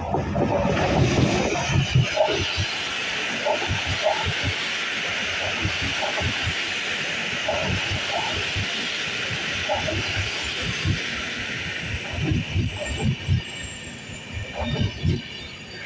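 Electric locomotive and its passenger coaches passing close by. The wheels keep up a steady rolling hiss, with repeated clatter as the wheelsets pass over rail joints and points. It is loudest in the first two seconds as the locomotive goes past, and bunched clacks come near the end.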